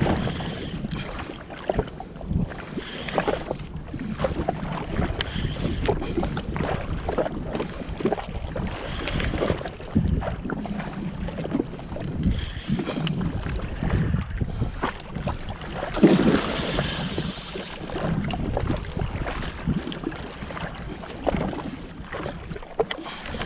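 Water slapping and splashing against a jet ski's hull, with wind buffeting the microphone; a bigger splash comes about two-thirds of the way through.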